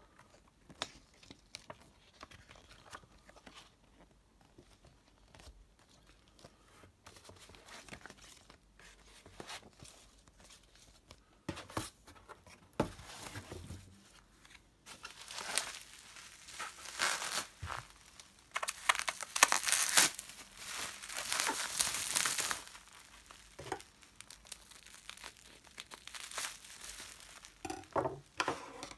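Packaging being unwrapped by hand: faint rustles and light taps of paper folders at first, then from about halfway loud crinkling and tearing of plastic wrapping and bubble wrap, going on in bursts almost to the end.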